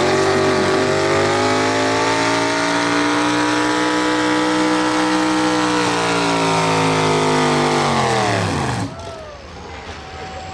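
Two-wheel-drive pulling pickup's engine at full throttle under the load of the pulling sled, holding a steady high pitch, then winding down and falling in pitch from about six seconds in before dropping away near nine seconds.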